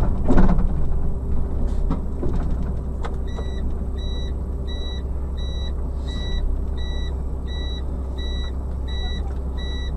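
A vehicle's engine running with a steady low hum, and from about three seconds in an electronic warning beeper in the cab sounding about twice a second.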